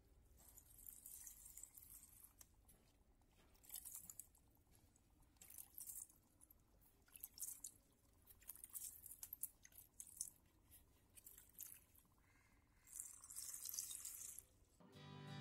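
Potted plants being watered: faint bursts of water spraying, about six times with pauses between. Music begins just before the end.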